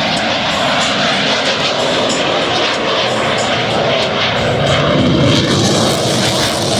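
Fighter jet flying at high power: a loud, steady rush of jet noise, with a deeper rumble building from about four and a half seconds in.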